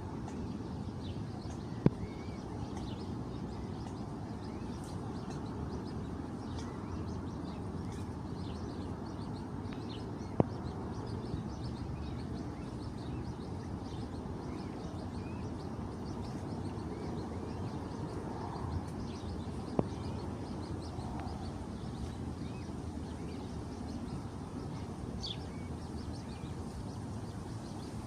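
Birds chirping in short, scattered calls over a steady low background noise. A few sharp clicks stand out, about two, ten and twenty seconds in.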